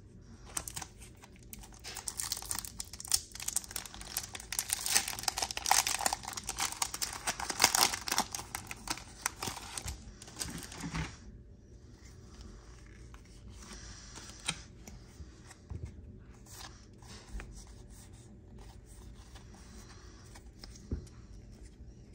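Foil wrapper of a Pokémon trading card booster pack being crinkled and torn open for about eleven seconds. After that come fainter scattered clicks and rustles as the cards are handled.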